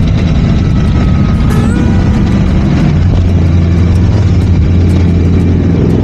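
Boss Hoss V8 motorcycle engine running steadily under way, a deep, even drone with no big revs.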